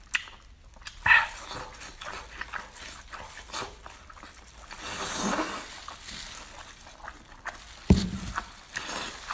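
Wet eating sounds of spicy octopus tentacles being slurped and chewed: sucking slurps, lip smacks and small wet clicks, with a sharp squeak about a second in and a longer slurp around the middle. A single low thump near the end is the loudest sound.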